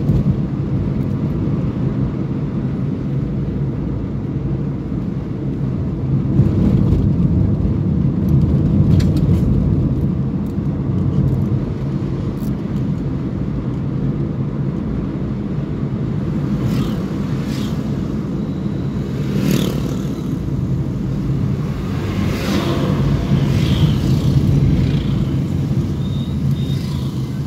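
Steady low rumble of engine and tyre noise inside a moving car's cabin, with a few brief higher hissing sweeps in the second half.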